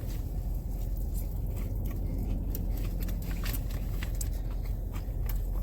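Someone biting into and chewing a crispy fried chicken sandwich, with many short crisp crunches, over a steady low rumble.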